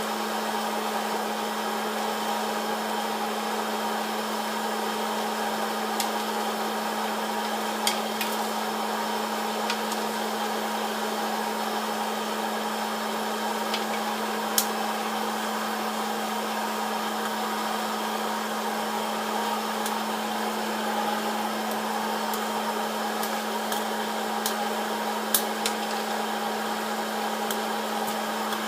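Electric hot-air popcorn popper running, its blower giving a steady hum. Scattered sharp pops of kernels bursting come every second or few seconds.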